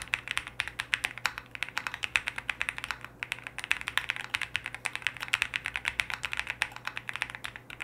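Typing on an Angry Miao 65 Less custom mechanical keyboard: a fast, steady stream of keystrokes, with a short pause about three seconds in.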